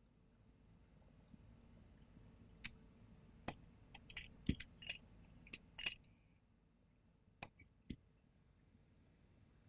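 Fiber optic cleaver being closed and worked to cleave an optical fiber: a string of sharp plastic-and-metal clicks and clacks, a quick cluster a few seconds in and two more single clicks later.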